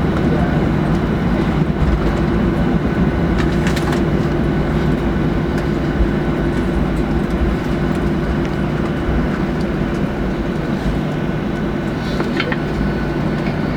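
Cabin noise of a Boeing 737-800 with CFM56 engines rolling on the ground after landing: a steady engine hum over a constant rumble, with a couple of faint clicks.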